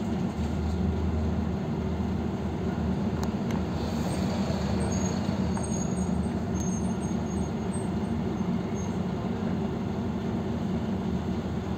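PAZ 320405-04 bus engine idling, a steady low hum heard inside the passenger cabin.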